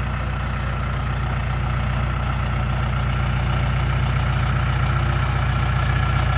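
Yellow John Deere loader tractor's diesel engine running at a low, steady speed as the tractor drives across the ground, growing slowly louder as it comes closer.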